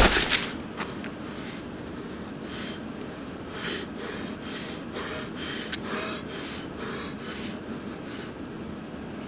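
A person breathing heavily, with ragged breaths repeating about once a second over a steady background hiss. A brief loud burst comes right at the start.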